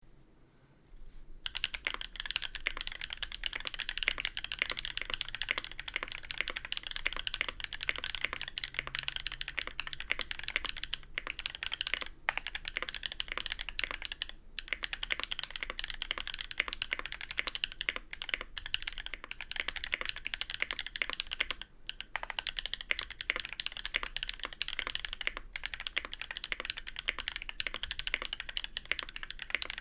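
Continuous fast typing on a mechanical keyboard with an acrylic Tofu65 case, brass plate, lubed Holy Panda tactile switches and GMK keycaps, with no sound dampening. It starts about a second in, a dense stream of key clicks broken by a few short pauses.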